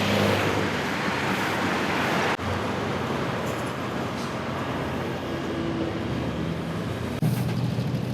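City road traffic: a steady hum of vehicle engines and tyres. It changes abruptly a little over two seconds in and again near the end.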